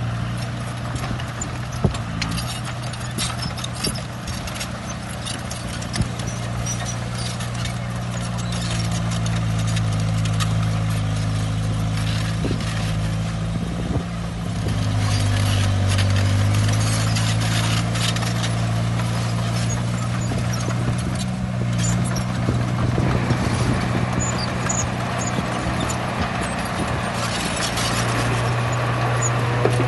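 Heavy diesel engine of a bulldozer running steadily, its pitch sagging for a moment about halfway through as it takes load, with repeated metallic clanking and knocking over it.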